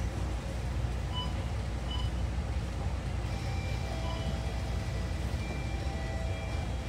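Steady low rumble of a moving city bus heard from inside the cabin: engine and road noise. A couple of faint short beeps sound about a second and two seconds in.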